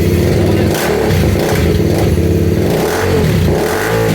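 BMW G310 RR's single-cylinder engine, running through an aftermarket slip-on exhaust, idles for about a second and is then blipped several times, the pitch rising and falling with each rev.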